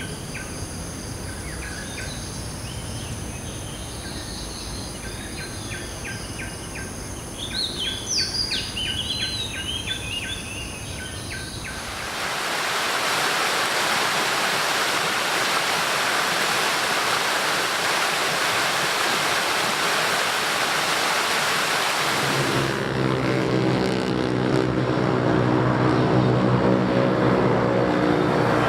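Birds chirping and trilling over a steady high-pitched tone. About twelve seconds in it cuts suddenly to a loud, even rushing noise. Near the end a low engine drone of steady pitch joins the noise.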